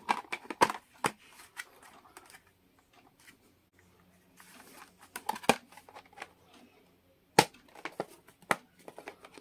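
Hard plastic clamshell carrying case of a multimeter being handled: a cluster of sharp clicks and knocks at the start, a soft rustle of the test leads being tucked in midway, then a few sharp plastic snaps in the second half as the cover is shut and clipped.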